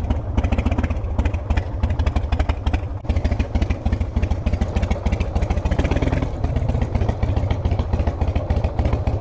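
Harley-Davidson V-twin motorcycle engine idling, a steady run of exhaust pulses.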